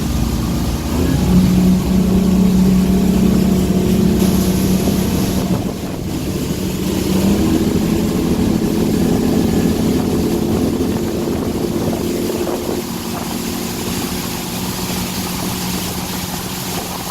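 Engines of a Regal 28 Express boat under throttle as it accelerates up onto plane. The engine note climbs about a second in, eases briefly near six seconds, comes back up, then settles to a steady run on plane.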